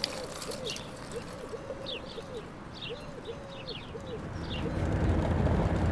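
Birds calling: a quick run of short low calls with higher chirps above them. About four seconds in, a car engine's steady low hum comes in and grows louder.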